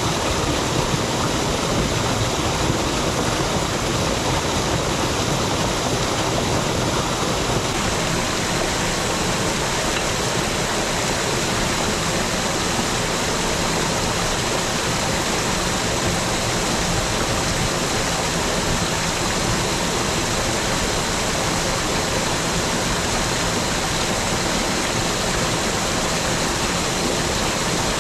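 Steady rushing noise of running water, unbroken and even.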